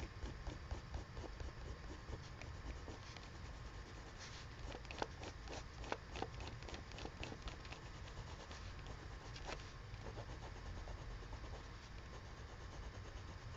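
Prismacolor colored pencil scratching on paper in runs of quick, short strokes, busiest in the middle, over a low steady rumble.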